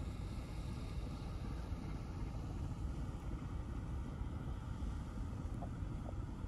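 Steady low rumble of a diesel pusher tug passing on the river as it pushes a barge convoy.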